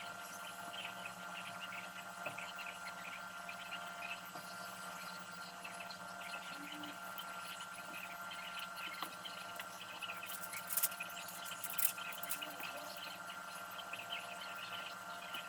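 Steady electrical hum with a thin high whine, light crackling over it, and two short bursts of hiss about two-thirds of the way through.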